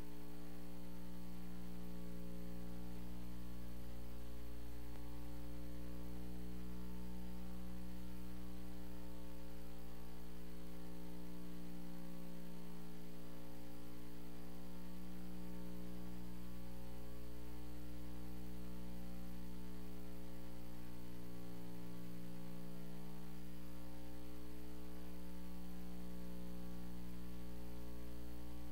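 Steady electrical mains hum: a low, even buzz.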